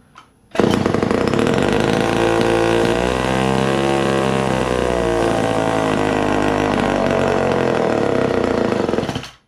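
Poulan 306A two-stroke chainsaw with a freshly rebuilt carburetor, starting about half a second in and running, its engine speed wavering up and down in the middle. It cuts out near the end.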